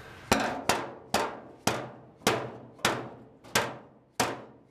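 Hammer blows on the new one-piece sheet-metal floor pan of a 1967 Mustang as it is knocked into place: eight sharp metallic strikes, about two a second, each ringing briefly as the panel sounds.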